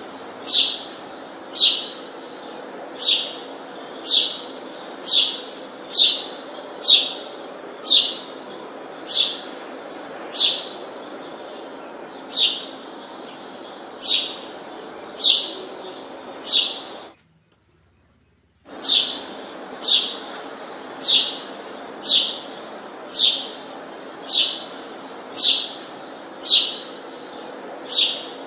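A bird repeating a short, sharply falling chirp about once a second, over a steady background hum. The sound cuts out completely for about a second and a half about two-thirds of the way through.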